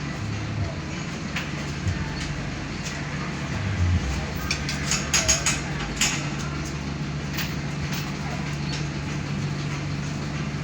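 Mercedes-Benz OF-1519 Bluetec 5 city bus running in service, its diesel engine a steady low drone, with a cluster of sharp clicks and rattles in the middle.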